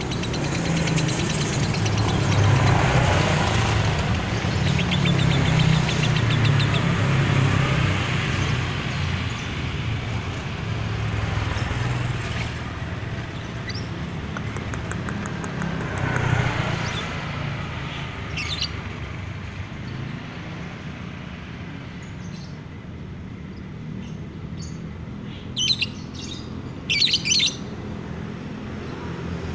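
Caged female lovebird chirping in short trills, with a few loud, sharp chirps near the end, over the steady rumble of motorbikes and traffic passing on the road; the traffic is loudest in the first third.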